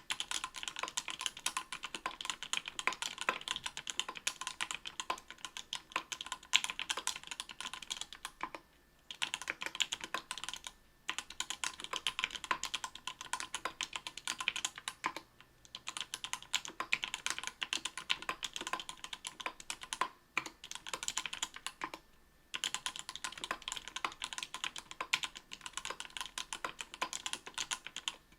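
Typing on a mechanical keyboard with lubed Everglide Coral Red 67 g linear switches (Krytox 105) in an aluminium plate under GMK keycaps: a dense, steady run of keystroke clacks broken by a few short pauses.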